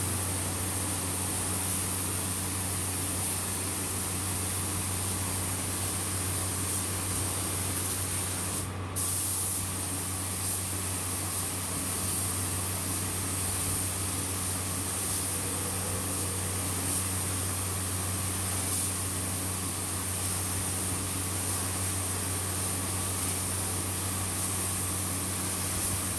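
Compressed-air spray gun hissing steadily as it sprays paint onto a car body, over a steady low hum. The hiss breaks off for a moment about nine seconds in, when the trigger is let go.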